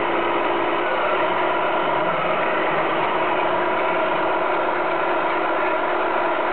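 A 1/14 Tamiya Scania R620 radio-controlled truck running, a steady mechanical whirr with a slight rise in pitch about two seconds in.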